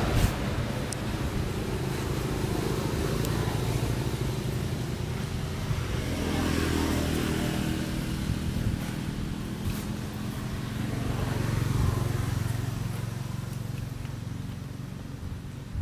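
Low, steady hum of motor vehicle engines, swelling about six seconds in and again around eleven to twelve seconds, then fading toward the end.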